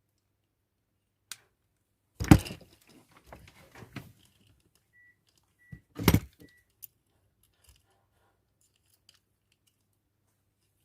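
Small tools and parts being handled on a workbench: two sharp clattering knocks about two and six seconds in, with lighter clicks between. Three faint short high beeps come in the middle.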